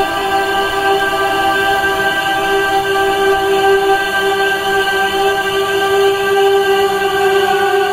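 Ambient music: a sustained drone holding one steady chord, with no beat or rhythm.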